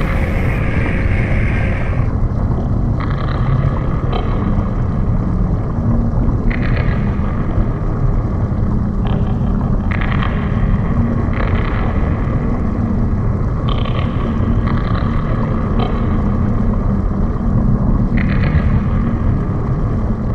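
Underwater ship noise: a loud, steady deep rumble, with short hissing surges every second or two.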